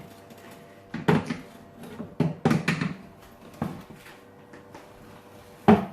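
An oven door and a baking tray being handled: a string of knocks and clatters, with the loudest sharp thump near the end.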